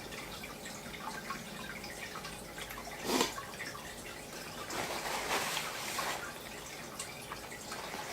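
Close-miked eating sounds: wet chewing and mouth smacks from someone eating fast food, with a louder bite about three seconds in and a run of chewing between about five and six seconds in.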